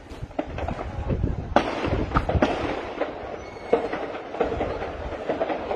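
Distant gunfire: irregular shots cracking and echoing, the loudest about one and a half seconds in.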